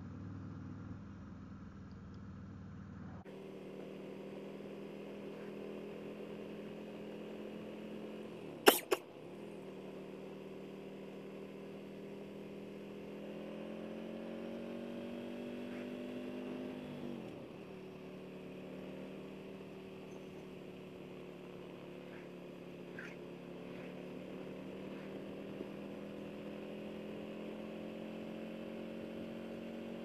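Harley-Davidson Road King Special's Milwaukee-Eight 114 V-twin running under way through Vance & Hines slip-on mufflers; its pitch climbs gradually and then drops sharply a little past halfway. A single sharp knock about a third of the way in is the loudest sound.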